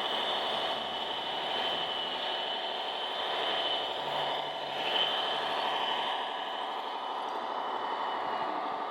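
Radio-controlled model construction machines running, their electric drives and gearboxes giving a dense mechanical whir with a steady high whine that fades out near the end.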